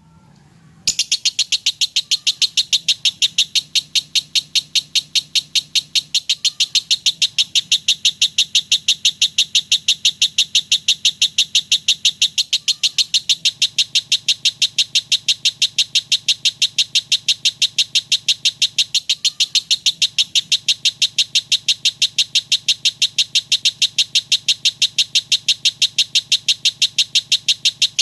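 A lovebird singing a long, unbroken rapid-fire chatter of sharp high notes, several a second without a pause, starting about a second in after a brief silence. This is the fast 'semi-konslet' rattling song that lovebird keepers prize.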